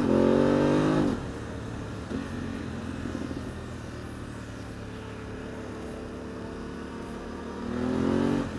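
Motorcycle engine accelerating hard, picked up by a microphone inside the rider's helmet. The revs climb until about a second in, then the pitch drops sharply and the engine runs lower and steadier under wind noise, and near the end the revs climb again briefly before dropping off.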